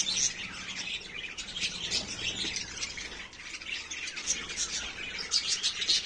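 A flock of budgerigars chirping and chattering, with many short high calls overlapping throughout.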